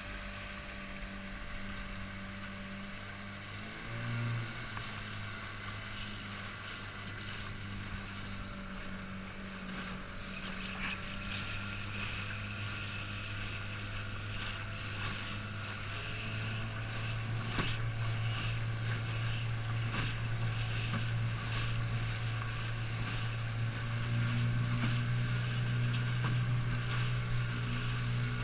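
Outboard motor of a small aluminium boat running steadily under way, a low hum with water splashing along the hull. The engine note rises briefly about four seconds in, then gets louder partway through and again near the end.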